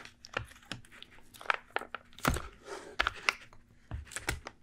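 Sealed plastic film lid being peeled off a microwaveable plastic baby-food tray: irregular crackling and sharp ticks as the tightly sealed film resists and the tray flexes.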